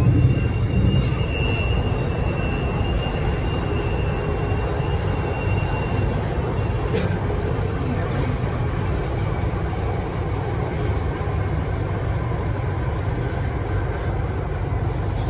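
Inside an Alstom Metropolis M5 metro train running through a tunnel: a steady low rumble of wheels and running gear. A faint high whine sounds for the first six seconds or so, and there is a single sharp click about seven seconds in.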